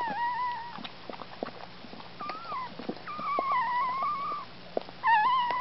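Newborn Scottish Terrier puppy crying in thin, high, wavering squeals, four times, the third the longest, with soft wet clicks of the mother dog licking it.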